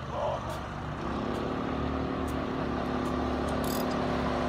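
Go-kart's Predator 212 single-cylinder four-stroke engine running hard at a steady pitch as the kart drives toward the listener, growing gradually louder. It is on a test run after a governor and throttle adjustment meant to give it full power.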